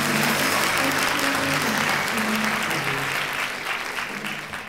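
Audience applauding over a few held low notes from the band, the whole fading out near the end.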